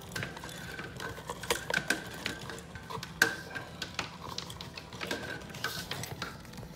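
Electrical cable being pulled by hand through a drilled hole: irregular clicks, scrapes and rubbing, with one sharper knock a little past the middle.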